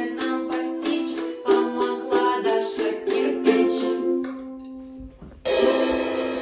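Two ukuleles strumming chords, which die away about four seconds in. After a short pause a final chord comes with a crash cymbal struck by a drumstick, about five and a half seconds in, and is left ringing.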